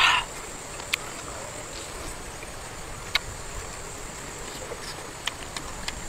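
Person eating with the mouth: a short puff of breath right at the start, then a few sharp mouth clicks and smacks spread through, over a steady low hiss.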